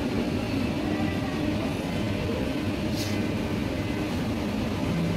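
Steady low rumbling background noise, with a brief hiss about three seconds in.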